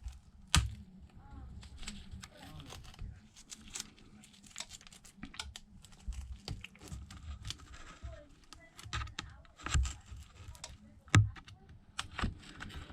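Thin pry tool scraping and clicking under the cracked glass of a shattered iPad Pro 12.9 screen, with scattered crackles and a few sharper snaps as the glued screen is worked loose.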